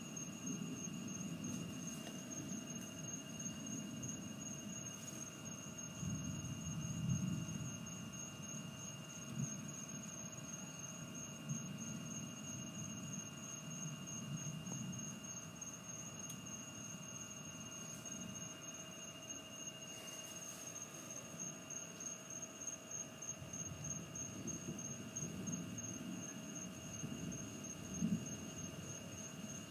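Night-time outdoor ambience during a storm: two steady high-pitched tones, the higher one pulsing rapidly, over a low rumble that swells and fades.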